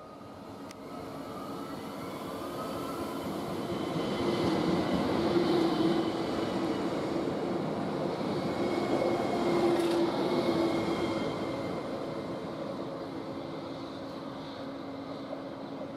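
ÖBB Cityjet electric multiple unit running close past along the platform. Wheels on rail and the electric drive's whine swell up over the first few seconds, hold, and fade away near the end.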